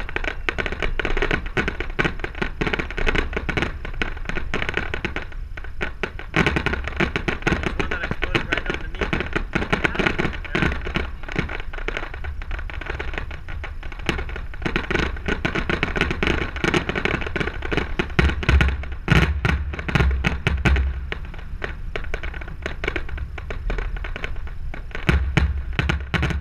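Fireworks going off: a rapid, continuous run of bangs and crackling, with heavier booms about two-thirds of the way through.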